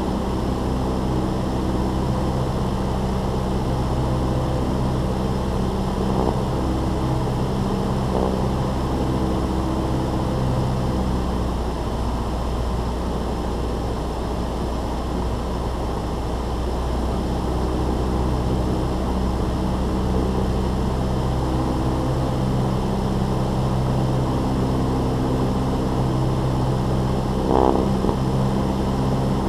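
Cessna 172's piston engine and propeller droning steadily in cruise flight, under a wide rush of airflow noise. Midway the drone wavers for a few seconds before steadying again, and there is one short knock near the end.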